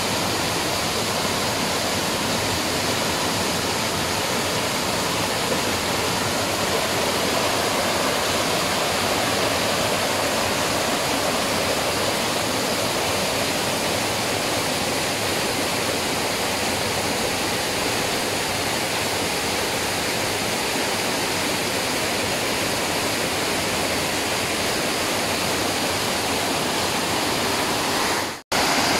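Waterfall: a steady, even rush of falling water, dropping out for an instant near the end.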